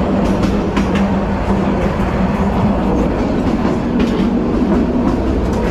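Moving passenger train heard from inside the carriage: a steady loud rumble, with irregular clacks from the wheels over the rail joints.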